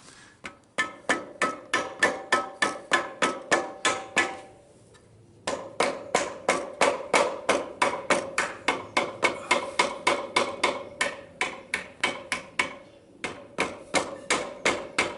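Hammer tapping a Triumph T140 fork bottom spindle clamp into place on the fork leg. The taps come fast, about four a second, each with a metallic ring, in three runs with short pauses between.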